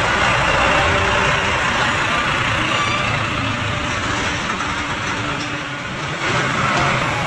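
Heavy-haul Scania truck with a multi-axle trailer passing close by: a steady rush of engine and tyre noise.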